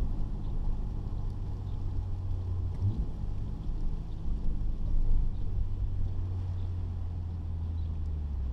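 Nissan 300ZX V6 engine droning steadily with road noise, heard from inside the cabin while driving. The pitch jumps briefly about three seconds in, and it gets louder for a moment around five seconds.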